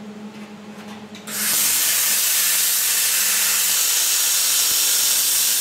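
Angle grinder cutting into steel, throwing sparks: a loud, steady, harsh hiss that starts abruptly about a second in and holds.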